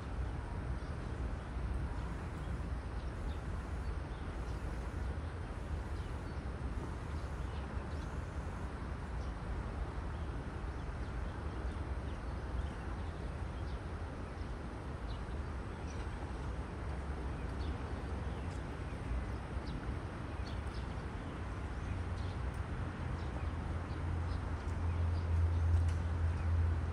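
Outdoor background: a steady low rumble that grows louder near the end, with faint, short, high chirps scattered through it.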